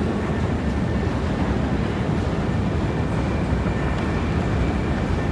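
Metro escalator running: a steady low mechanical rumble with a faint thin whine over it.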